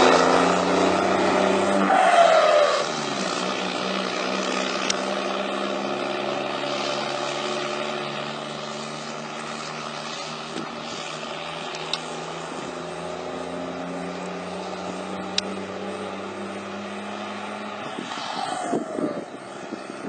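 Straight-piped diesel truck engine running loud at first, its revs falling about two seconds in, then settling to a steady idle. The revs rise and drop again briefly near the end, with a few faint clicks in between.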